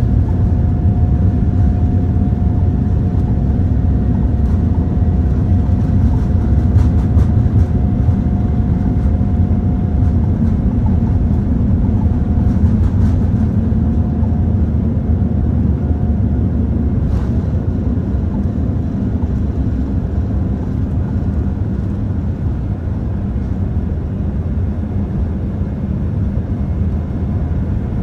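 Boeing 787-9 at takeoff power heard inside the cabin: a steady, loud low rumble from the GEnx engines and the takeoff roll, with a thin steady tone that fades out about halfway through as the jet lifts off and climbs. The rumble eases slightly in the second half.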